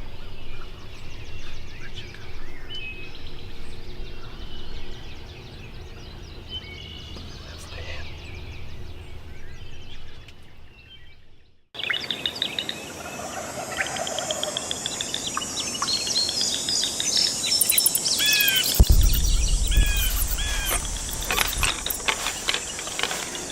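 Wild birds calling and chirping at dawn, many short chirps overlapping, dropping out briefly about halfway and then coming back busier. A low thump or rumble sounds near the end.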